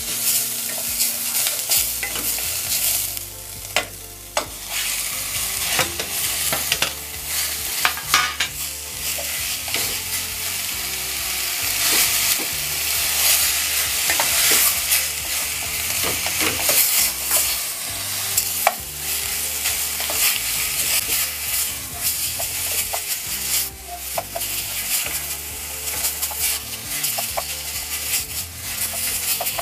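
Minced leek, onion, garlic and ginger sizzling in sesame oil in a stainless steel saucepan, stirred with a wooden spatula that scrapes and taps the pan in many short clicks. Partway through, diced pork goes in and sizzles as it is stirred through the aromatics.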